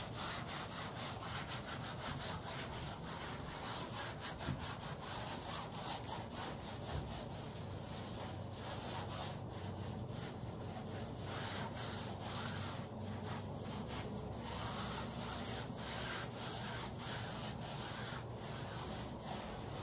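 A gloved hand rubbing and smearing acrylic paint across a stretched canvas, a continuous rub made of many short, quick strokes.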